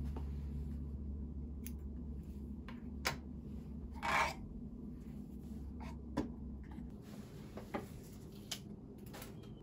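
Thread cones being handled on a sewing machine's thread stand: scattered light clicks and taps, with a short scraping rustle about four seconds in. A low steady hum runs underneath and stops about seven seconds in.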